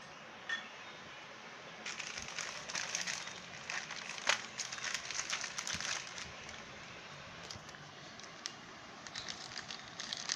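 Packaging crinkling and rustling as a keyboard is unpacked, in irregular bursts with scattered small clicks and taps, busiest in the middle and again near the end.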